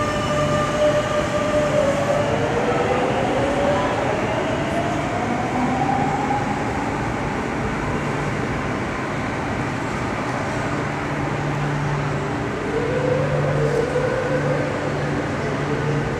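Madrid Metro Line 10 electric train pulling out of the station: the whine of its traction motors rises in pitch as it accelerates, over a steady rumble of wheels on rail. A second rising whine starts about three-quarters of the way through.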